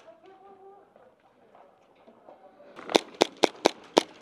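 Airsoft pistol firing five sharp shots in quick succession, about four to five a second, near the end after a quiet stretch.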